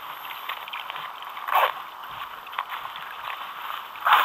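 Small waves lapping and slapping against the hull of a sit-on-top fishing kayak, with two louder splashes, about one and a half seconds in and at the end.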